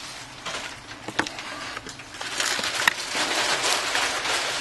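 Handling noise from small hand tools and a phone on a work surface: two sharp clicks, then a crackling, scraping rustle from about halfway through.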